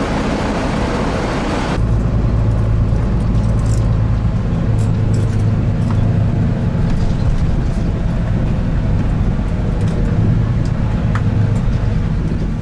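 A bus engine running with a steady low drone, heard from inside the passenger cabin, with a few light clicks and rattles. Before it, about two seconds of rushing outdoor noise that cuts off abruptly.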